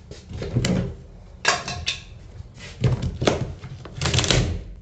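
Painted wooden tongue-and-groove ceiling boards being shoved upward and broken open by hand: four short bouts of knocking and splintering wood, about a second apart.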